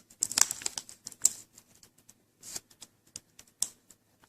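Small sharp clicks and crinkles of fingers working the LCD ribbon-cable connector and its tape loose on a laptop screen. There is a dense flurry in the first second or so, then scattered single ticks.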